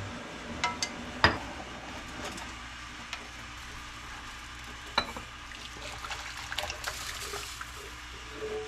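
Kitchen handling sounds: a few sharp clicks and knocks of utensils or dishes, the loudest about a second in and again about five seconds in, over a steady low hiss and hum.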